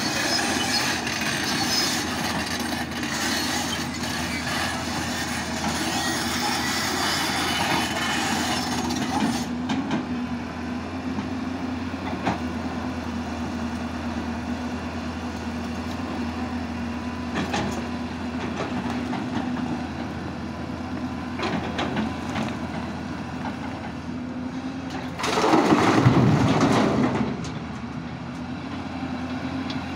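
Hyundai crawler excavator's diesel engine running steadily under load as it digs, harsher for the first nine seconds or so, with scattered clacks of stones. About 25 seconds in, a loud rumbling crash of a bucketful of rock and soil dropping into the steel bed of a tipper truck.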